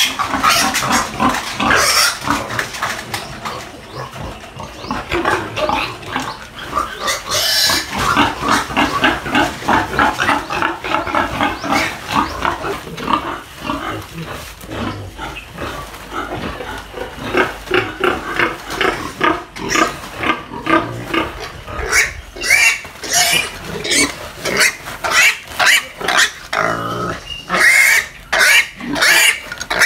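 Duroc–Pietrain breeder piglets squealing over and over while they are handled, bagged and hung in a sack to be weighed. The squeals are loud and come in quick, short cries, most sharply separated near the end.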